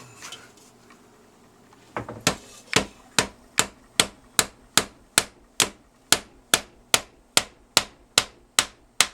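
Hammer blows on wood in a quick, steady series, about two and a half strikes a second, starting about two seconds in. This is the new piece of a bathroom window sill and its trim being hammered into place.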